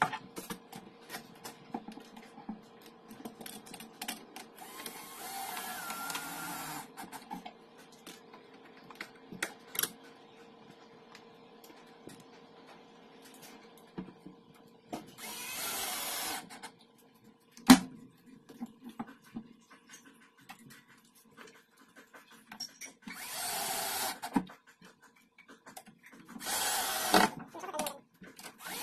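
Cordless drill-driver driving screws into a cabinet door's hinge plates in four short runs of one to two seconds each, with clicks and knocks from handling the screws and hinge between them. A faint steady hum sits under it all.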